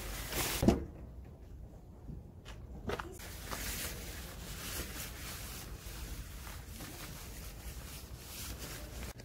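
Camping tarp fabric rustling and flapping as it is spread out and fixed to a pickup's tailgate, with one loud flap in the first second. After that come scattered light knocks and footstep scuffs on concrete over a low steady rumble.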